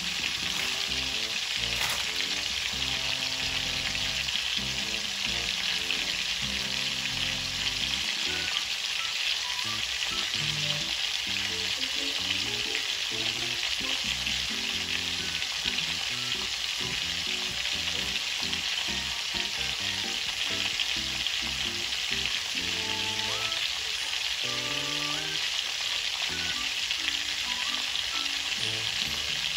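Pre-boiled chicken legs frying in shallow oil in a steel frying pan, a steady sizzle as the skin crisps.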